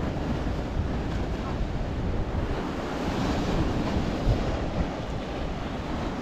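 Steady wind rumbling on the microphone over the hiss of small sea waves breaking on the beach.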